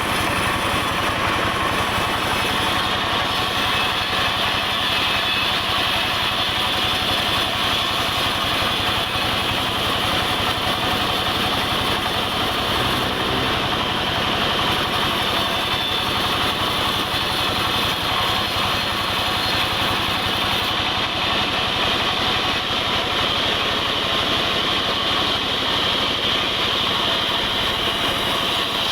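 Sawmill running steadily while its blade saws through a dense mahogany log, a constant high whine over the drone of the machine.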